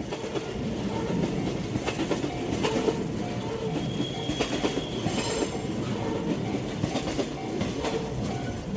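A freight train of JR Freight container flatcars rolling past, steel wheels rumbling and clattering over the rail joints, with a brief high wheel squeal about four seconds in.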